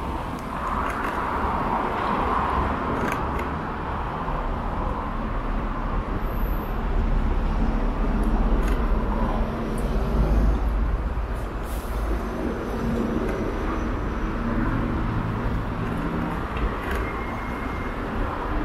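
Steady road and wind noise from riding along a street: a continuous low rumble with a few faint clicks, and traffic around it.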